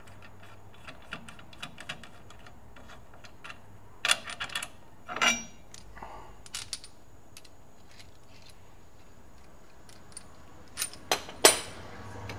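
Scattered light metal clinks and clanks from hand tools and the VW bus's rear spring plate being handled. A cluster of sharper knocks comes about four to five seconds in, and a few more come near the end.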